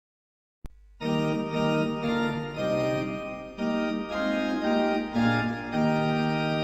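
Organ playing the opening of a hymn tune in sustained chords that change every second or so. It starts about a second in, just after a brief click.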